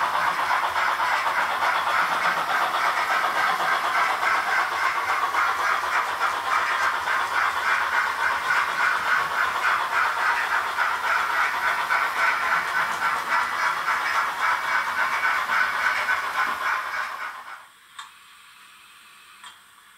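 Simulated steam chuffing with hiss from a Roco HO-scale steam locomotive's DCC sound decoder, in a fast, even rhythm as the model runs. It fades out about 17 seconds in, leaving a faint hiss and two small clicks.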